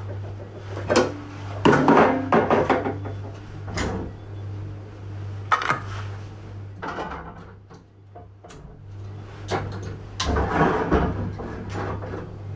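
Pots, dishes and utensils being handled, with several separate bouts of knocks and clinks, over a steady low hum.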